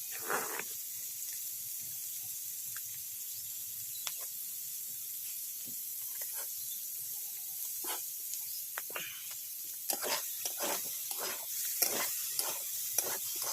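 Steady high sizzling hiss of food frying in a pan, with a quick run of short clatters in the last few seconds.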